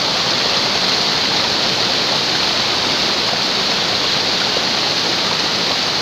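Loud, steady rush of a waterfall's falling water, unbroken throughout.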